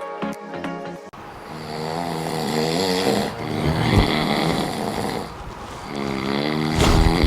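A person snoring loudly with a rough, fluttering rattle, three long snores about two seconds apart. It begins about a second in, when a short stretch of music cuts off.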